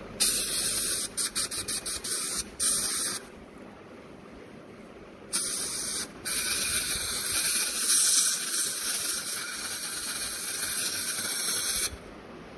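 Dental three-way air-water syringe spraying at the teeth, a hiss. It comes as quick puffs over the first three seconds, then after a pause a brief blast and a long steady spray of nearly six seconds that cuts off sharply near the end.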